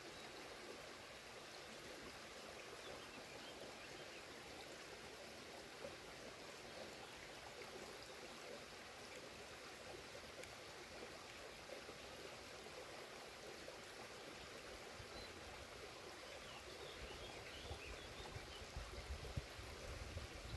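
Faint, steady rush of water from the Bayehon stream and its waterfall. A low rumble creeps in near the end.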